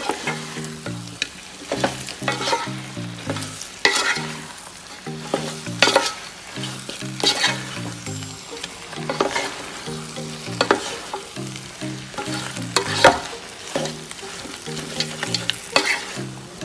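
Wooden spatula stirring fried chicken pieces and sautéed onions in a pan, with irregular scrapes and knocks against the pan over a light sizzle of frying.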